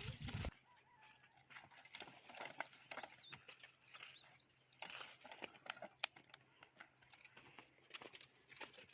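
Faint outdoor quiet with scattered light clicks and rustles; a few seconds in, a bird gives a quick run of high chirps, and one sharp click stands out near the middle.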